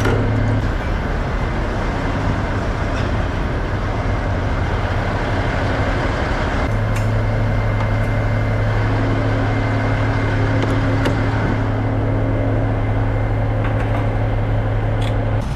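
Truck-stop diesel pump filling a semi truck's fuel tank: a steady rushing noise, with a low hum that drops out under a second in and comes back about seven seconds in.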